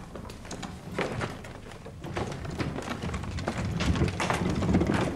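Footsteps and movement of several people, with irregular knocks and scuffs over a low rumble that builds toward the end.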